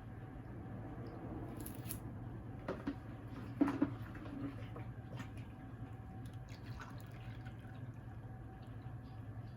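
Liquid dripping and sloshing during cooking, with a few light knocks a little under four seconds in, over a steady low hum.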